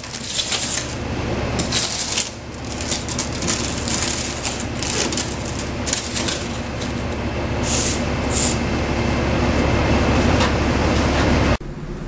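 Concrete mixer truck running steadily while wet concrete slides down its chute into a crane bucket, a low engine hum under a grainy scraping pour. The sound cuts off suddenly near the end.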